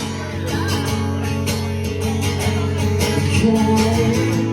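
Live acoustic band music: strummed acoustic guitar chords in a steady rhythm.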